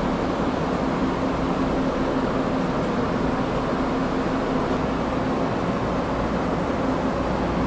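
Steady mechanical hum from a standing Amtrak Northeast Regional passenger train at the platform, with an even low drone and a faint steady tone that does not change.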